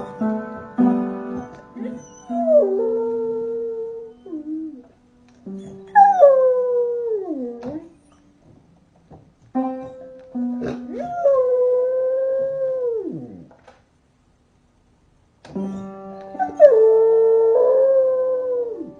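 A puppy howling over piano music: four long howls, each wavering and then sliding down in pitch at its end, the third the longest.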